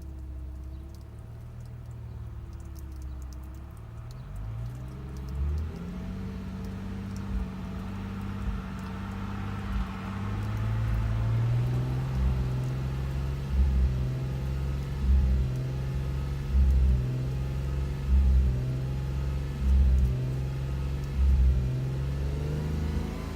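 Subaru EZ30R 3.0-litre flat-six engine running. Its revs rise about five seconds in and then hold steady. From about halfway on, a heavy low stumble comes back about every second and a half, the uneven running of an engine with misfires on bank 2 (cylinders 2, 4 and 6).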